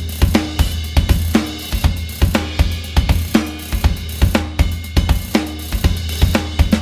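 Sampled drum kit from the Funkmasters EZX library for EZdrummer 3 playing a groove: busy hi-hat, kick drum, and a ringing snare about once a second, over a steady low tone.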